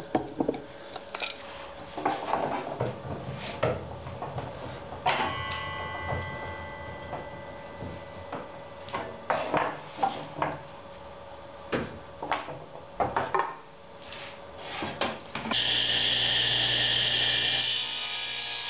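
A run of wooden knocks and clicks as small hardwood blocks are handled and set against the table saw's fence, one knock about five seconds in ringing on. About fifteen seconds in a table saw starts abruptly and runs steadily, cutting a small wood block fed through with a push block near the end.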